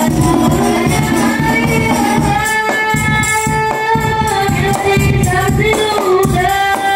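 Hadrah Banjari performance: young men's voices singing sholawat into microphones, with long held notes, over a quick rhythm beaten on terbang frame drums.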